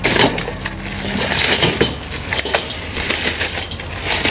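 Clear plastic bag crinkling as spiny lobsters are tipped out of it into a stainless steel bowl, with many small clicks and scrapes of shell against the metal.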